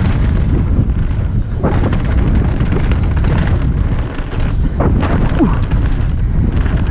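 Wind buffeting the camera microphone over the rumble and rattle of mountain bike tyres on a stony dirt trail, with a couple of sharper knocks as the bike hits stones.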